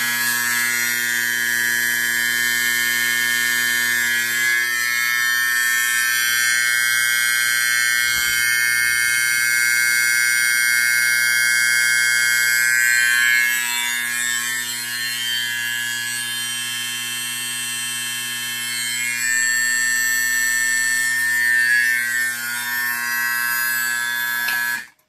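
Simplex fire alarm horn sounding continuously: a loud, steady, harsh buzz, dipping slightly midway and cutting off abruptly near the end. It is the non-coded continuous alarm signal from a pulled station on a 1965 Simplex 4246-2 fire alarm control panel, not the March-time coded pattern.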